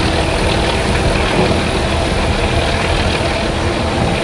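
Steady loud rush of water gushing out of a large pipe outlet and churning into a pool, over the low rumble of a John Deere 350G excavator's diesel engine running.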